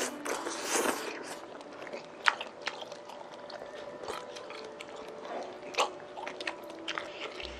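Close-miked slurping of hot pot broth and noodles from a small bowl in the first second, then chewing and lip smacking with a few sharp clicks.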